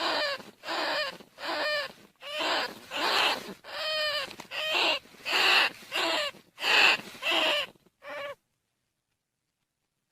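Recorded rat calls played as a decoy to lure rice-field rats and bandicoot rats: a quick series of about a dozen short calls, each under half a second with a rising-then-falling pitch. The calls cut off abruptly about eight seconds in.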